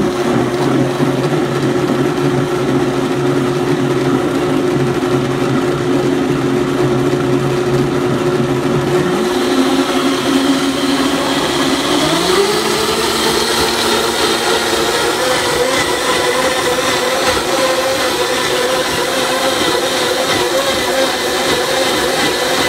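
Blendtec blender motor running its smoothie program, blending a jar of fruit, spinach and water. About ten seconds in, its pitch rises over a few seconds as it steps up to a higher speed, then holds steady.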